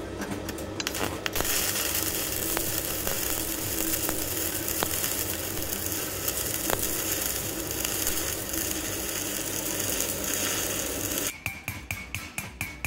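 Stick welding with a 1.6 mm covered electrode on thin steel square pipe, from an EENOUR MIG120L in its arc-welding mode. After a few clicks the arc catches a little over a second in and crackles steadily for about ten seconds. It then breaks off and is followed by rapid metallic tapping, about five a second, with a ringing tone.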